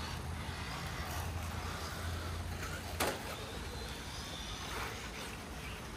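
Electric radio-controlled rally car driving on a dirt track, its motor giving a faint whine over tyre noise. A low hum stops about halfway with one sharp click.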